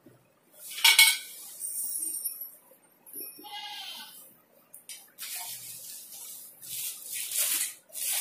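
Dining-chair parts being handled: a metal frame knocks and rings about a second in, a short wavering squeal follows a couple of seconds later, then plastic packing wrap crackles and rustles in bursts.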